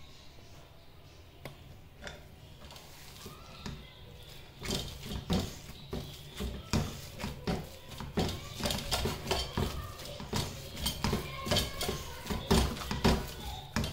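Wire potato masher pounding hot shredded chicken and lentils in a metal pressure cooker pan: a run of dull knocks and clinks about two a second, starting about four seconds in.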